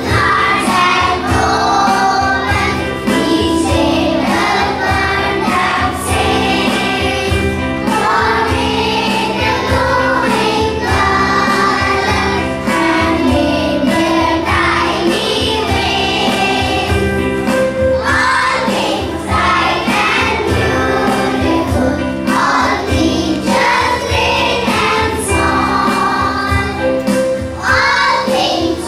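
A group of young children singing a prayer song together into microphones, over a musical accompaniment with a steady beat.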